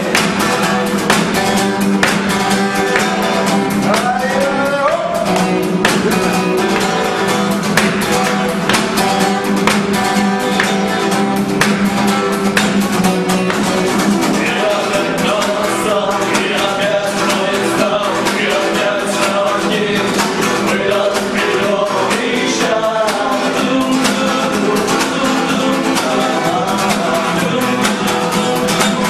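Music: a song with guitar and singing over a quick, even beat.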